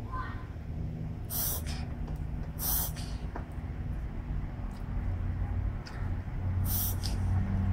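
A pet sneezing in a fit: three sharp sneezes, about a second and a half in, near three seconds, and again near the end, over the steady low hum of a hot tub's pump.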